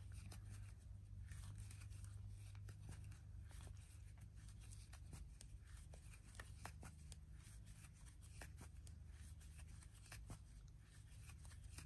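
Near silence: faint rustling and scattered light ticks of a crochet hook working yarn, over a low steady hum.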